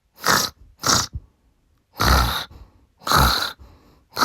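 A man snoring in a Morse-code rhythm: two short snores, then two longer ones a second apart, with a third long one starting at the end, spelling out SOS as a sign that he is having a nightmare.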